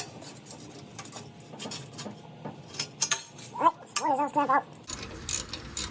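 Hand tools clinking and clicking against metal as the exhaust header bolts are worked loose, with a short wavering pitched sound about two-thirds of the way in.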